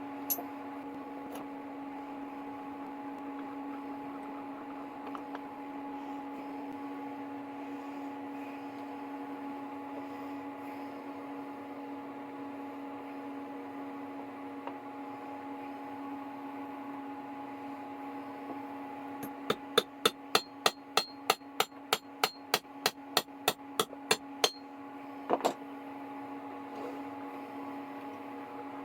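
A quick run of about twenty light hammer taps on the metal vise parts, some four a second, followed by a double tap, over a steady electrical hum.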